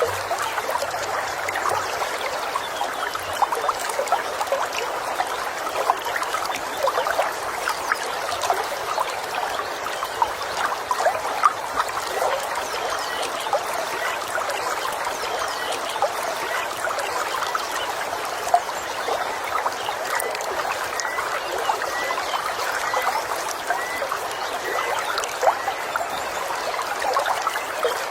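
A small stream trickling and babbling steadily over stones. Faint bird chirps repeat in the last third.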